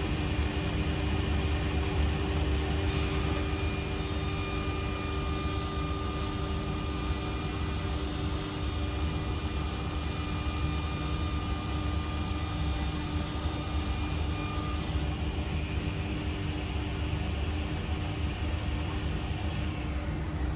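SIP 01332 table saw running at full speed, its blade cutting along the edge of a board from about three seconds in until about fifteen seconds in, then spinning free again.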